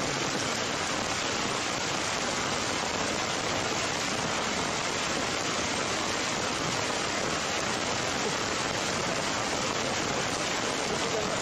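Heavy rain pouring steadily on foliage: a dense, even hiss.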